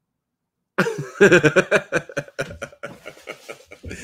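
A person laughing: about a second in, a quick run of loud, breathy laughs.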